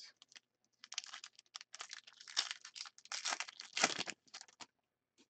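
Foil wrapper of a 2014-15 Upper Deck Ice hockey card pack crinkling as it is peeled open by hand, in a run of short rustles lasting about four seconds.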